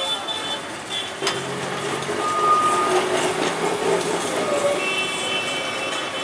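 Calcutta Tramways tram passing close by on its street track: a steady rumble and hum with thin, high whining tones over it, and one sharp click about a second in.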